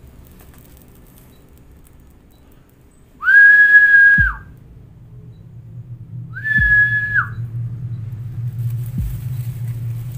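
Two long whistled notes at the same pitch, each about a second, about three seconds apart; a low hum builds up after the first, with a few dull thumps.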